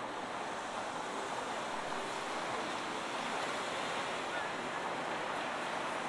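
Steady, even rushing noise of outdoor street ambience, with no distinct knocks or clicks.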